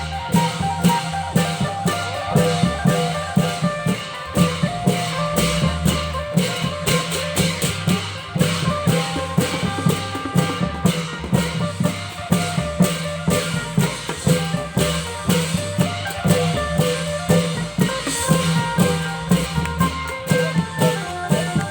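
Thai klong yao long-drum ensemble playing a fast, steady beat of drum strokes and bright metallic strikes under a held melodic line.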